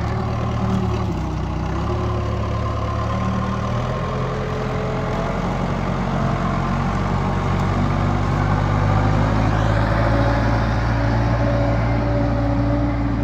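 Case 580 Super K backhoe's diesel engine running steadily while it moves logs, growing a little louder about eight to ten seconds in.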